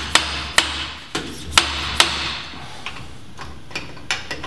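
Motorcycle front fork's outer and inner tubes slide-hammered against each other: a run of sharp metal knocks about two a second, driving the new fork oil seal into its seat. About two seconds in, the knocks give way to lighter, irregular clicks.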